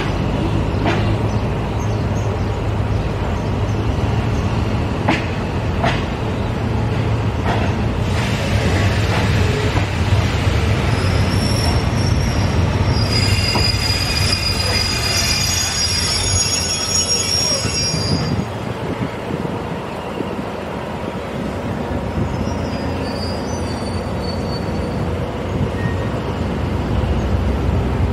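Passenger train carriage rolling slowly out of the station, with a steady low rumble and a few sharp clicks as the wheels pass over rail joints. From about eleven seconds in, the wheels squeal on the track for several seconds in high, thin tones, then it settles back to the rumble.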